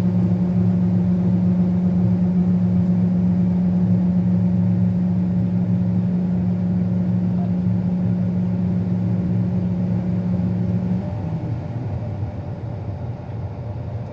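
Combine harvester running while cutting wheat, a loud steady low drone. About eleven seconds in, the drone's main note changes and it gets a little quieter.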